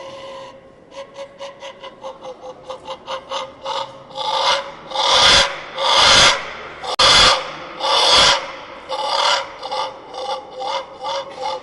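An ancient Mexican wind resonator (noise whistle) blown in short, harsh, raspy puffs, about four a second, swelling into four long loud blasts in the middle and then falling back to shorter puffs.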